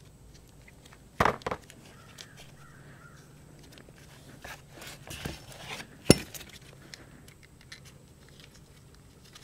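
A few sharp clicks and knocks from small metal parts being handled, as a T30 Torx bolt is picked up and set into the AC compressor's clutch plate. There are two knocks just after a second in, a scatter of lighter clicks around five seconds, and one sharp metallic click about six seconds in, the loudest sound.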